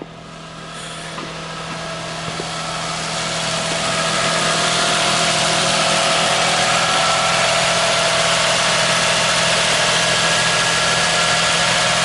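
Toyota Sienna's 3.0-litre V6 idling steadily with an even hum and hiss, growing louder over the first four seconds and then holding level; it is running normally now that the failed starter has been replaced.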